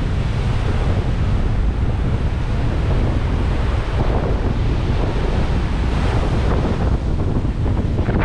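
Heavy storm surf breaking in strong wind, with wind buffeting the microphone in a steady low rumble.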